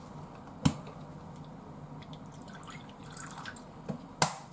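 A plastic bottle cap clicks open, then liquid trickles and drips from the bottle into a small stainless steel measuring cup. A sharp click sounds near the end.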